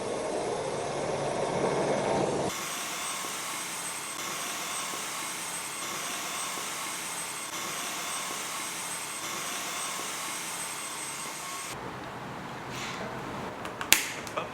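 Cordless stick vacuum cleaner with a motorised mop head fitted, running steadily with an even rushing hiss and a faint high whistle. The sound changes abruptly about two and a half seconds in and again near the end, with a sharp click shortly before it stops.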